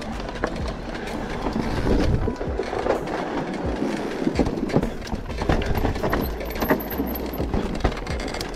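Mountain bike rolling over a rough dirt and gravel trail: tyres crunching and the bike rattling with many sharp knocks, over a steady low rumble of wind on the camera microphone.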